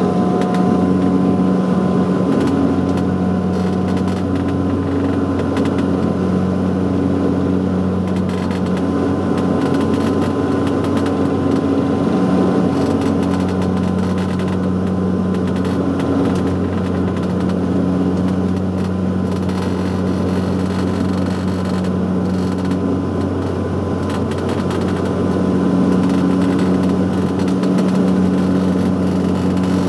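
Steady cabin drone of a Saab 340's twin General Electric CT7 turboprop engines and propellers, a deep propeller hum that slowly swells and fades every few seconds, with a thin high whine above it.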